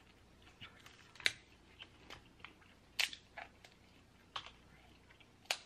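Snow crab leg shells cracking and snapping as they are broken apart by hand: a handful of sharp cracks spaced a second or so apart, with small clicks of shell between them.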